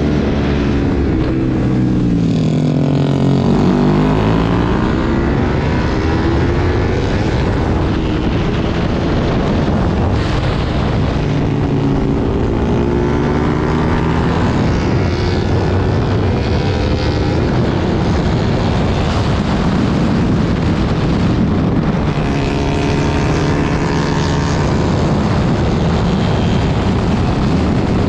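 Sport motorcycle engine heard from on board at track speed, its pitch falling and rising several times as it slows for corners and accelerates out, over a steady rush of wind.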